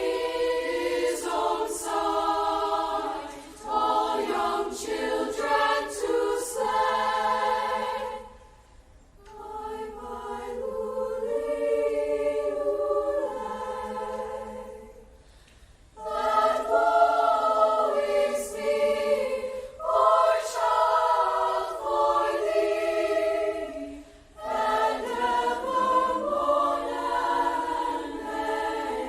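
A student choir singing a holiday song in several voice parts, phrase by phrase with short breaks between; a quieter passage in the middle before it swells again.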